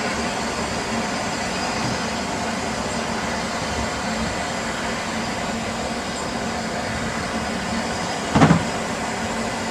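Steady running noise of a train in motion, with one brief louder sound about eight seconds in.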